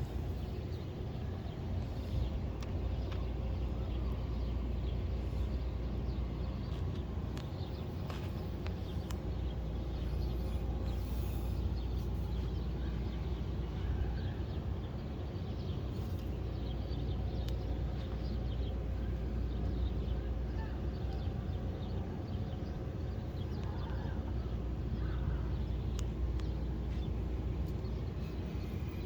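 305 small-block Chevy V8 running steadily, with a ticking noise that the owner suspects is a failing torque converter or a cracked flexplate.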